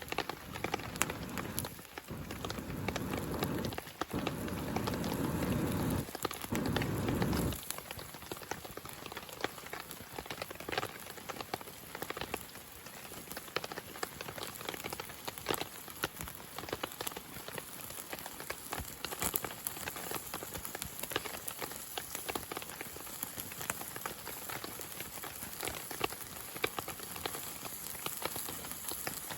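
Rain pattering steadily in many small drops. For the first seven or so seconds a louder low rushing noise lies over it.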